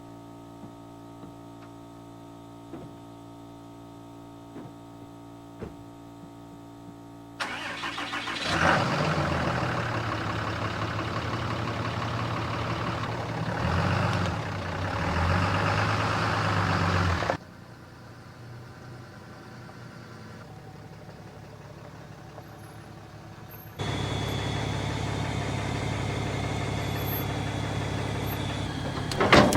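A vehicle engine idling steadily, then running much louder from about seven seconds in with its pitch rising and falling, dropping back to a quieter run, and running loud and steady again near the end.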